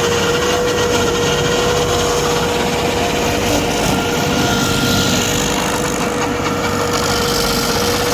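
Stump grinder running steadily under power: an engine note and a constant whine with rough grinding noise.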